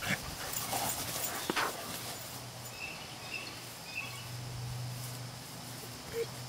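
A dog and a puppy playing on grass: scuffling and a couple of sharp knocks in the first two seconds, then quieter movement under a steady low hum, with a few faint short chirps in the middle.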